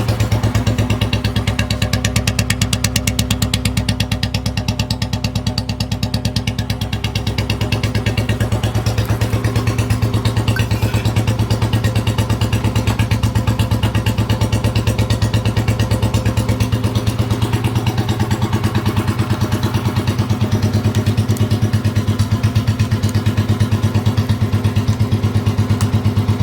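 Royal Enfield Bullet Electra 5S single-cylinder engine idling steadily, each firing heard as an even, regular beat. This is the freshly restored bike running after its start-up.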